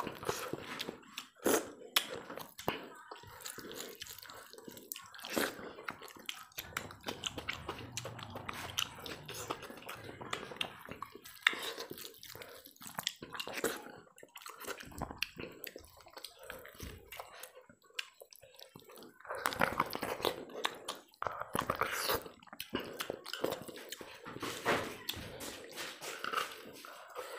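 Close-miked wet eating sounds: chewing and biting on a curried mutton head, with squelching as fingers knead rice and curry on the plate. Irregular wet clicks and smacks come thick and fast throughout.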